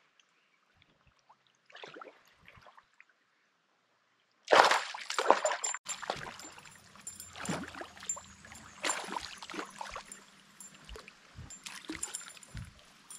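Hooked pickerel thrashing and splashing at the water's surface beside the boat: a sudden loud splash about four and a half seconds in, then repeated irregular splashing, with a few dull knocks near the end.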